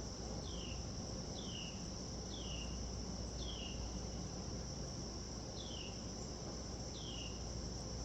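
Evening chorus of crickets or other insects: a steady, high-pitched trill, with short falling chirps about once a second on top.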